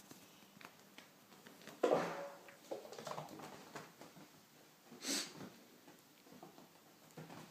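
A Labrador dog and a cat at play, with sniffing, snuffling and scuffling noises. There is a louder short noise about two seconds in and a breathy burst about five seconds in.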